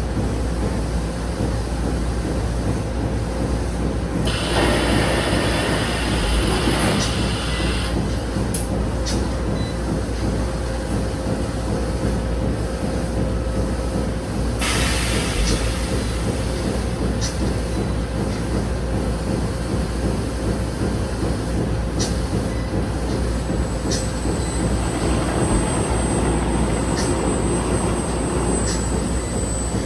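Industrial machinery running: a steady low rumble and hum, with a hiss that comes in about four seconds in for a few seconds, another hiss from about fifteen seconds on, and scattered sharp clicks.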